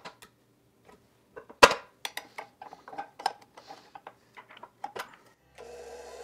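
Knocks and clicks of a glass mixing bowl and beater being handled on a bowl-lift stand mixer, the loudest knock about a second and a half in. Near the end the mixer's motor starts and runs steadily.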